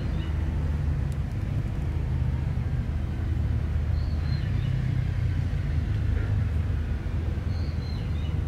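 Mother cat purring steadily, a continuous low rumble, while she lies relaxed nursing newborn kittens.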